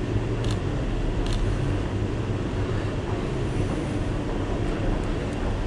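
Steady low rumble of city background noise, with a couple of faint clicks in the first second and a half.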